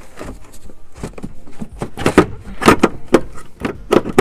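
Hands rummaging through gear packed in a plastic rooftop cargo box: rustling with a run of sharp knocks and rattles, the loudest a little after two seconds, near three and near four seconds in.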